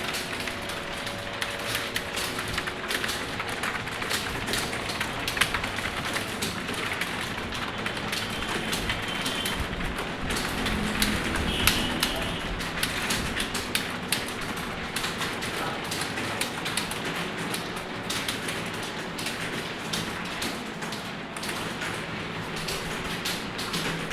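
Fast typing on a computer keyboard: a continuous run of key clicks, several a second, over a steady low hum.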